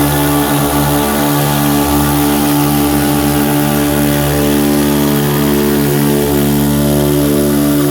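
Four-stroke glow engines of a large RC model Cessna Skymaster, an O.S. FS-62V on the front propeller and a Saito FA-62 on the rear pusher propeller, running steadily together with their 13x6 props. The note holds a slow, regular waver.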